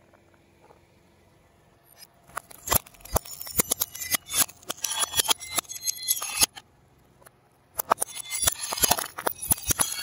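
Brittle painted plates cracking and snapping under a car tyre as a rapid, crackling run of sharp clicks. It starts about two seconds in, pauses briefly after the middle, and resumes near the end.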